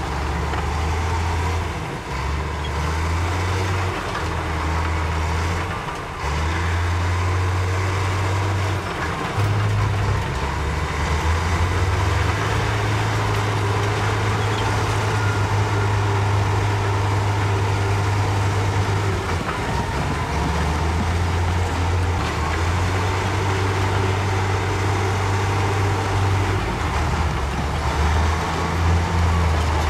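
Heavy diesel earthmoving machinery running: a deep, continuous engine rumble whose low note steps up and down every second or two as the machines work.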